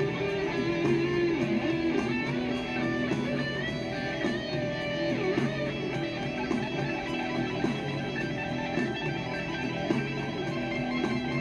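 Rock music: an instrumental guitar passage with electric guitars over a steady beat.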